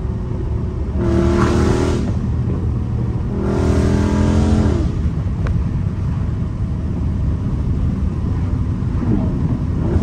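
Dodge Charger Scat Pack's 392 HEMI V8 through a catless exhaust, heard from inside the cabin while cruising: a steady deep drone that swells louder twice, about a second in and again around three and a half seconds, each time for a second or so as the throttle is opened.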